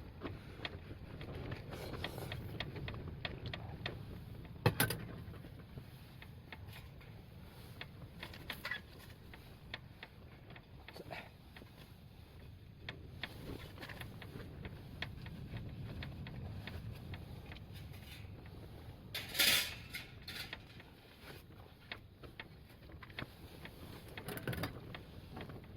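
Strong wind gusting against a tent, a low rumble that swells and fades, with scattered small clicks and knocks inside the tent and two louder brief noises, about five seconds in and a few seconds past the middle.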